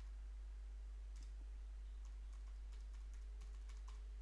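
Faint computer keyboard typing: a scattered run of key clicks as a password is typed, over a steady low electrical hum.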